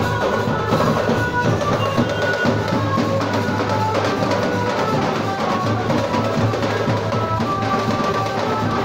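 Procession drummers beating large hand-carried drums in a dense, fast, continuous rhythm, with a melody playing over the drumming.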